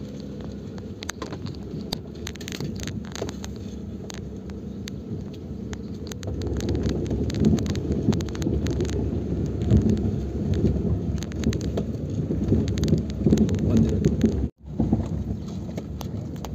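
Car driving slowly over a rough, rutted dirt track, heard from inside the cabin: a low rumble from the tyres and suspension with many small knocks and rattles, louder from about six seconds in. It breaks off for an instant near the end.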